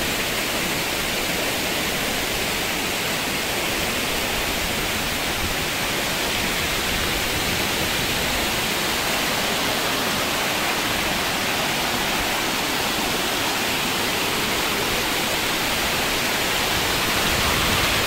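Waterfall pouring with a steady rushing hiss, unchanging throughout.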